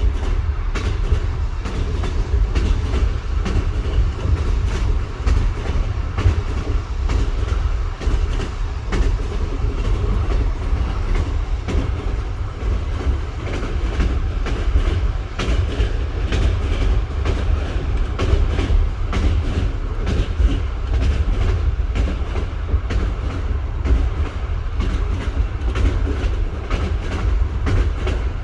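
Train running over jointed track: a constant deep rumble with continual knocking of the wheels over the rail joints.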